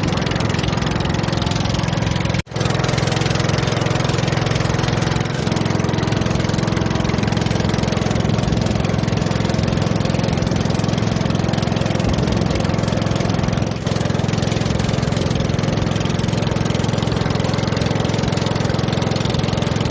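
Small boat's motor running steadily under way, a constant low hum with one brief break about two and a half seconds in.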